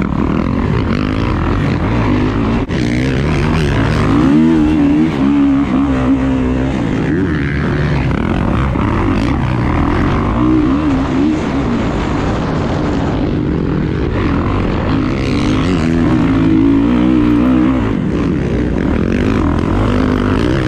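Onboard sound of a Kawasaki dirt bike's engine on a dirt trail, its pitch rising and falling again and again as the throttle is worked, over a steady rush of wind on the microphone.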